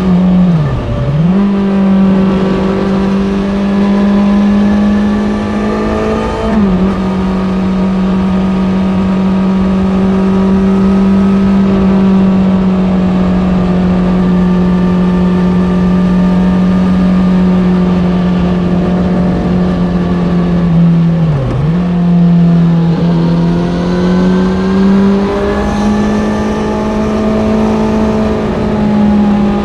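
Kawasaki Z900's 948 cc inline-four engine through an Ixil SX1 full exhaust system, running under load at fairly steady revs while riding. The revs drop sharply and pick straight back up three times: about a second in, near seven seconds and just after twenty seconds.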